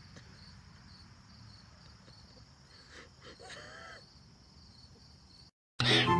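Faint outdoor background with a steady high chirring like insects. The sound drops out briefly near the end, and loud music cuts in.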